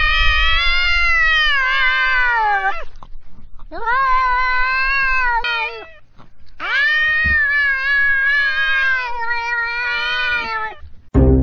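Tabby cat yowling at another cat in a face-off, a threat call. Three long, wavering, drawn-out yowls: the first trails off about three seconds in, the second runs from about four to six seconds, and the last from about seven to eleven seconds.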